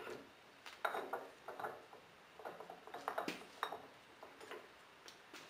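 Irregular metallic clinks and knocks of tools and a steel workpiece being handled while a metal shaper is set up, a few with a short ring.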